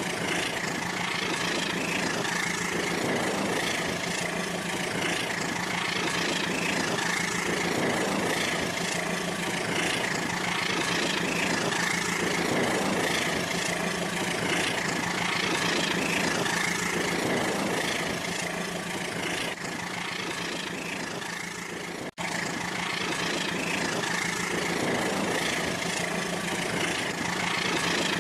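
Battery-powered Rail King toy train running on its track, its small electric motor humming steadily with a soft rhythm repeating about every second and a half. The sound cuts out for an instant about 22 seconds in.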